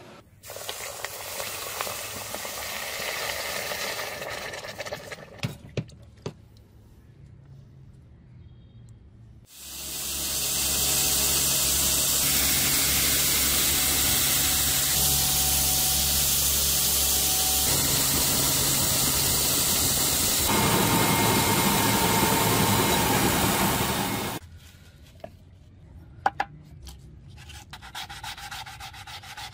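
Belt grinder running with a small cast brass block pressed against the belt: a loud, steady grinding hiss over a machine hum. It starts about ten seconds in and cuts off suddenly some fifteen seconds later. Quieter rubbing comes before it, and near the end there is hand wet sanding on sandpaper.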